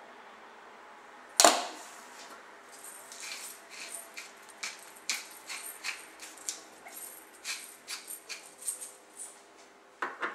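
A sharp knock about a second in, then a run of short crisp clicks, about two a second for some six seconds, from a hand pepper mill being twisted to grind black pepper.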